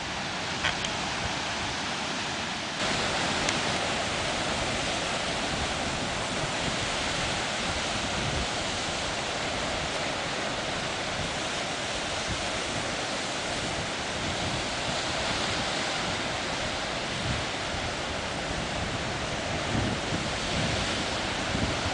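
Atlantic surf breaking and washing ashore, a steady rush of sea noise that grows louder about three seconds in. Wind buffets the microphone with a few low thumps near the end.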